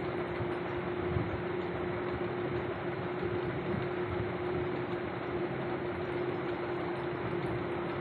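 Steady machine-like hum: one constant tone under an even hiss, unchanging throughout.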